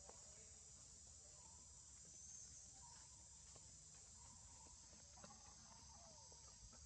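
Faint forest ambience: a steady high insect drone, with a few faint short chirps.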